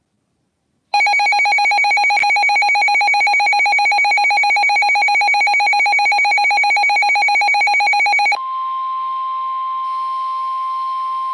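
Weather radio alert tones: a loud, rapidly pulsing electronic alarm beep starts about a second in and lasts about seven seconds, then switches abruptly to a single steady tone, the NOAA Weather Radio warning alarm tone that signals a warning broadcast is about to follow.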